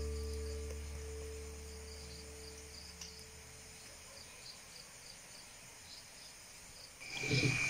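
Background music fading out over the first couple of seconds, leaving faint, steadily repeated cricket chirping; music comes back in near the end.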